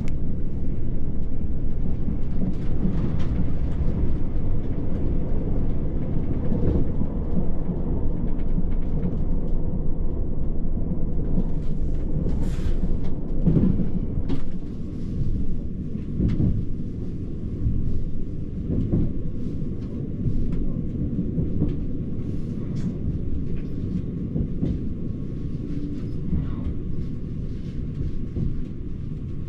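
Running noise heard from inside a Lilac limited express electric train (JR Hokkaido 789 series): a steady low rumble from wheels on rail, with scattered clacks and knocks over joints. It grows somewhat quieter in the second half as the train slows on its approach to the station.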